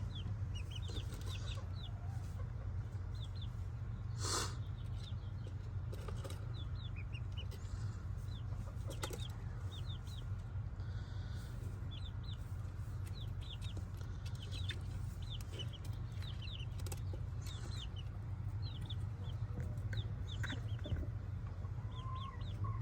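Young chickens peeping: many short, high, downward cheeps in small runs, over a steady low hum, with one sharp knock about four seconds in.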